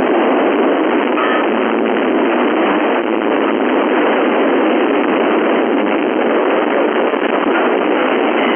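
Steady hiss of static from a radio receiver on the 11-metre (27 MHz) FM band with no station coming through, a thin hiss without deep bass or high treble. A faint brief whistle comes in about a second in.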